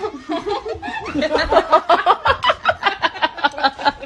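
A person laughing hard: a quick, rhythmic run of laughs that gets louder about a second in.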